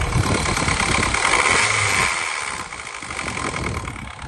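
2009 Mini Cooper S's turbocharged 1.6-litre four-cylinder idling, with a vibrating rattle from under the bonnet that the seller puts down to a loose bit of plastic. The sound drops in level about halfway through.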